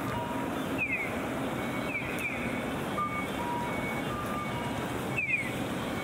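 Electronic chirping of an audible pedestrian crossing signal: pairs of quick falling bird-like chirps every second or two, with short plain beeps alternating between two pitches, over a steady hum of street traffic.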